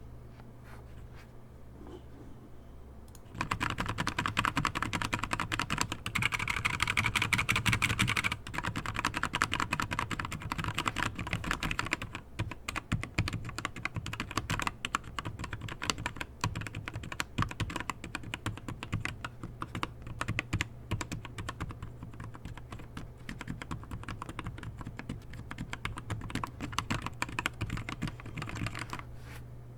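Typing on a Keychron K4 mechanical keyboard fitted with LK optical red linear switches that are heavily lubed with Super Lube grease. Rapid, dense keystrokes start about three seconds in, loudest for the first few seconds, then go on a little softer, over a faint steady low hum.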